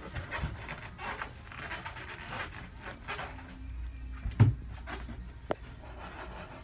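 Scattered light handling knocks and rustles, with one louder thump about four and a half seconds in and a sharp click a second later.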